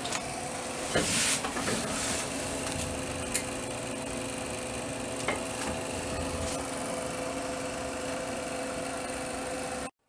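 Rubbing and scraping handling noise from a camera being carried and moved by hand, loudest about a second in, with a sharp click a little after three seconds, over a steady hum and hiss. The sound drops out briefly just before the end.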